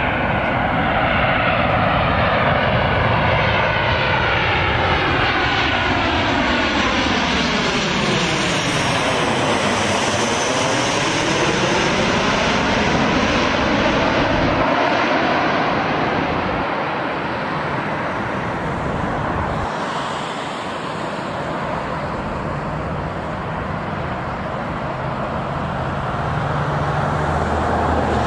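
Boeing 737-700 jet airliner on landing approach passing low overhead, its CFM56 turbofan engines giving a loud rushing noise with a sweeping, phasing whoosh that bottoms out as it passes about ten seconds in. Later the engine noise is steadier and a little quieter.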